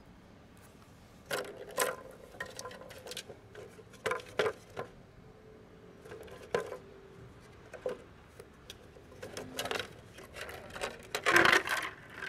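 Orange plastic ball-track cat toy clicking and knocking as a kitten bats at it, in scattered taps. Near the end comes the loudest clatter, with a thud, as the toy tips over.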